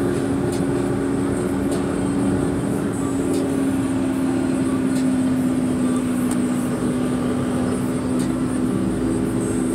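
A car driving, heard from inside the cabin: steady engine and road noise with a low hum that sinks slightly in pitch over the second half.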